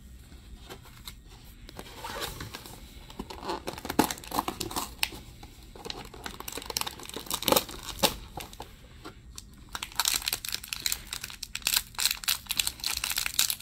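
Handling and crackling of cardboard toy packaging as a pull-out door is opened, with a few sharp clicks. About ten seconds in, a foil-plastic blind-pack wrapper starts to crinkle and tear steadily as it is ripped open by hand.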